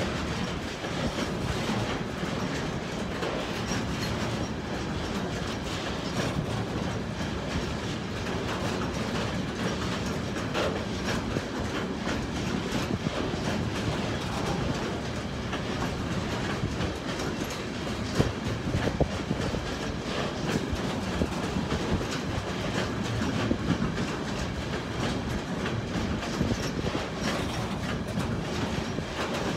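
Long freight train of container wagons rolling past, with a steady rumble and a constant run of wheel clicks.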